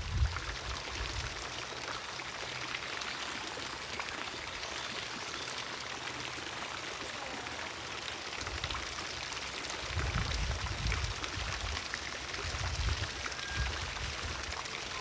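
Garden fountain splashing steadily in the distance, an even rush of falling water. From about eight seconds in, uneven low rumbling joins it.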